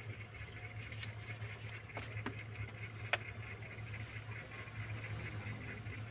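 Faint steady low hum with a few soft clicks, about one, two and three seconds in, from a kitten eating rice off a tiled floor.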